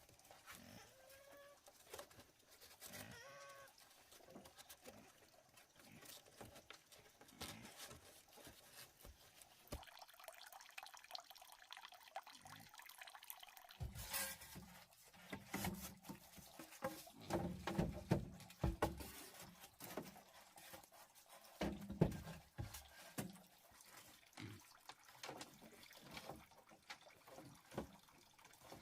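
Water sloshing and dripping, with many small clicks and knocks that come thickest in the middle of the stretch.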